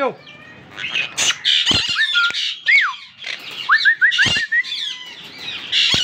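Monk parakeets squawking in alarm at a hand in their cage: a string of loud, harsh calls mixed with shorter rising chirps, including a quick run of four rising notes about two-thirds of the way through.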